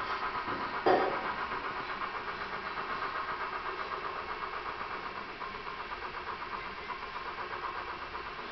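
Small battery-powered motor of a 1991 Nike Air 180 globe shop display whirring steadily with a fast, even pulsing as it turns the Air 180 ring around the globe. A single thump about a second in.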